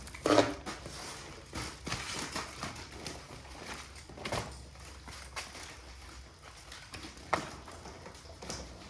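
Baby supplies and packaging being handled, with irregular knocks and clicks and light rustling; the loudest knocks come right at the start and again about seven seconds in.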